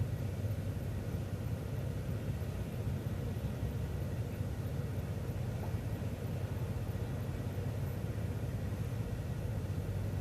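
Transit bus in motion, heard from inside: a steady low engine and road rumble that does not change.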